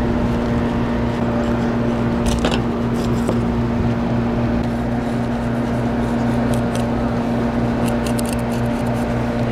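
The boat's motor humming steadily, with a few short scraping strokes of a knife cutting through a fish on a cutting table.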